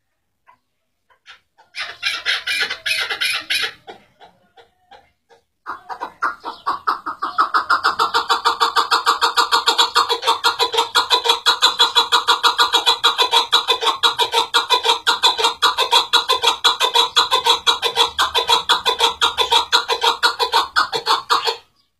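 Chukar partridge calling. It gives a short burst of rapid notes about two seconds in, then from about six seconds a long unbroken run of quick, evenly repeated chuck notes, several a second. The run builds to full strength and stops abruptly near the end.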